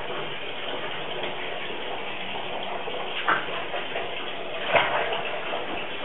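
Steady hiss of background noise with two short soft knocks, about three and five seconds in.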